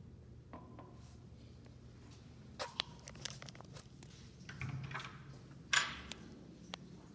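Metal toilet-stall door latch and door being worked open: a series of sharp clicks and clacks, with the loudest clack just before six seconds in, over a low steady hum.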